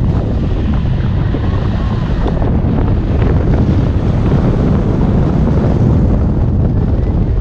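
Wind buffeting the microphone in a steady, loud low rumble: the rush of airflow over a camera on a hang glider in flight.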